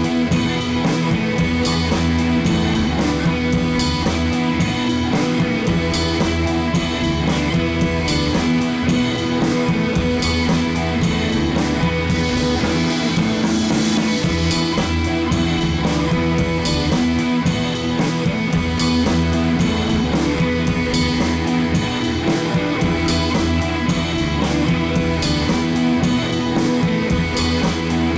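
Background rock-style music with a steady drum beat.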